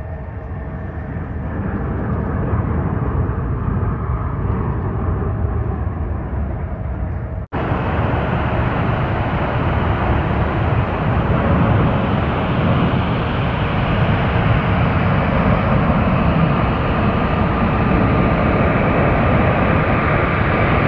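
Jet airliner engines during landing: a steady rumble that grows over the first couple of seconds. It cuts out for an instant about seven and a half seconds in, then returns brighter and fuller, with a faint steady whine near the end.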